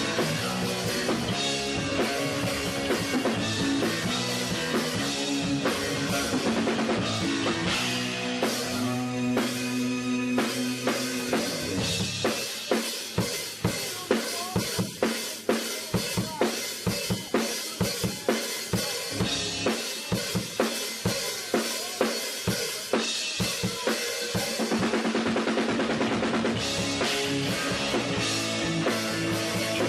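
Rock-style background music with a full drum kit, bass and guitar-like notes. Around the middle the bass drops out for a stretch of evenly spaced drum hits before the full band returns.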